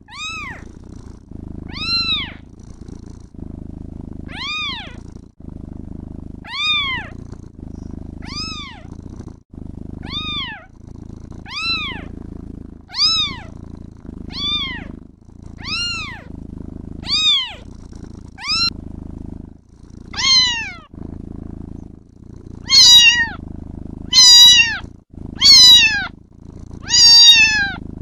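Kitten meowing over and over, roughly once every second and a half, each meow rising then falling in pitch, over a continuous low purr. In the last third the meows become louder and harsher.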